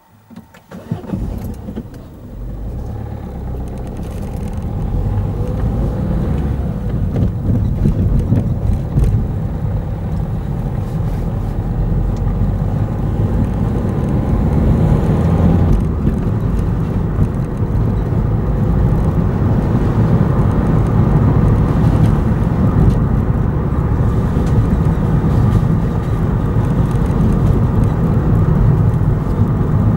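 A car pulling away and driving along a wet road: engine and tyre noise building over the first few seconds, then steady.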